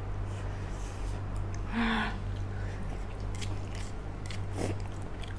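Close-up eating sounds of a mouthful of thick spicy instant noodles: wet chewing with many short mouth clicks and smacks, and a brief vocal sound about two seconds in. A steady low hum runs underneath.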